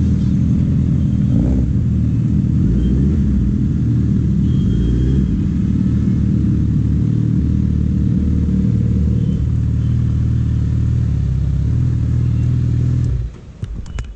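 Suzuki Hayabusa's inline-four engine running at low speed and idling, a steady low rumble. The engine sound drops away about a second before the end.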